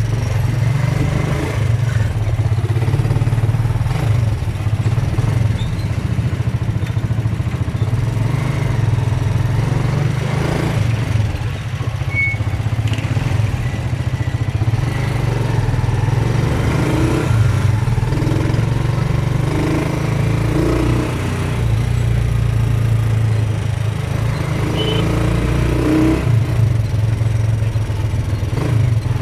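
Motorcycle tricycle's Honda motorcycle engine running steadily under way, heard from inside the sidecar, easing off briefly about eleven seconds in.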